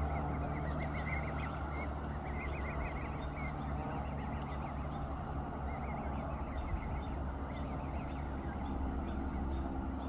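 Canada goose goslings peeping: runs of short, high-pitched chirps that come and go, over a steady low hum.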